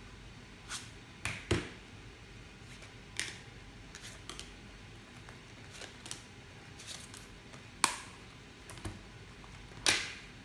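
A leather wallet being handled: irregular sharp clicks and taps, the loudest near the end.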